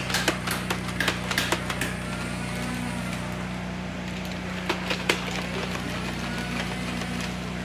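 A motorized Nerf machine-gun blaster firing foam darts in rapid bursts, a sharp click about three times a second, stopping about two seconds in, then two more shots around five seconds in. A steady low hum runs underneath.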